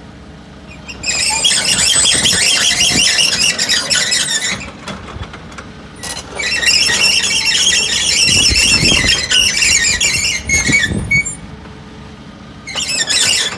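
2017 Volvo EC140EL hydraulic excavator working, its engine running under loud, high-pitched squealing that comes in three long stretches, the second the longest.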